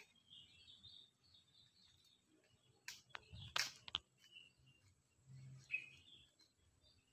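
Near silence with faint, scattered bird chirps, and a few short clicks around three to four seconds in.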